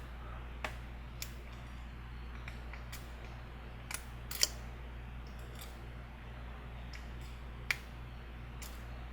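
Sparse, irregular small metal clicks of a Sparrows Sandman pick working the pins of a Master Lock No. 5 padlock under tension, the loudest about four and a half seconds in, over a steady low hum.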